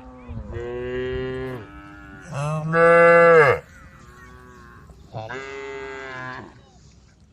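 Cattle mooing: three long moos, the middle one the loudest.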